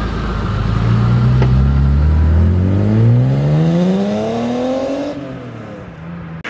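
Car engine pulling away: its revs climb in one long, steady rise in pitch for about four seconds, then the pitch drops and the sound fades about five seconds in as the car drives off.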